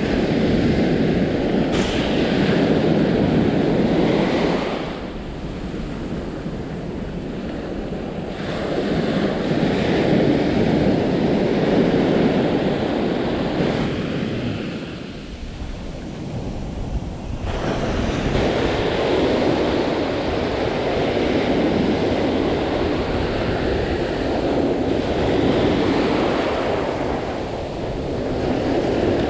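Surf breaking and washing up the sand, swelling and easing every several seconds, with wind rumbling on the microphone underneath.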